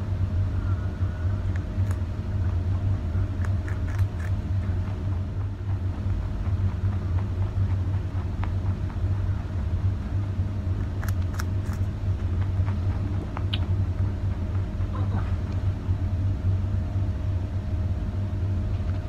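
A steady low mechanical hum fills the room. A few short, sharp crunches come through it as a rabbit bites into a raw carrot.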